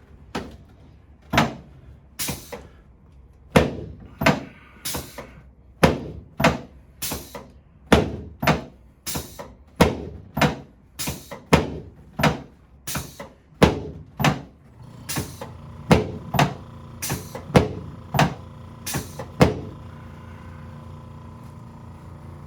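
Chiropractic adjustment of a patient lying face down: a rapid series of about thirty sharp thuds, roughly two a second, that stops a few seconds before the end. A low steady hum comes in about two-thirds of the way through.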